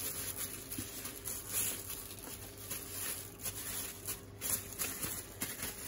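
Raw minced-beef hamburger patty being tossed and slapped from one plastic-gloved palm to the other: an irregular patter of soft, wet slaps with the rustle of the thin plastic gloves.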